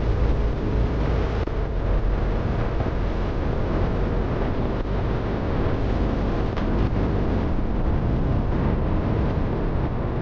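Motorcycle running on the road with heavy wind rush on the microphone, a steady, loud, low rumble throughout.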